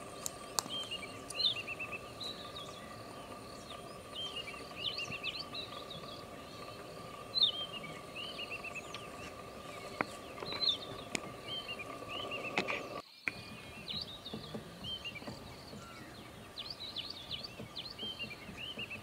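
Outdoor nature ambience: birds chirping and twittering in short repeated phrases over a steady high insect hum, with a few sharp clicks. The sound cuts out for a moment about two-thirds of the way through.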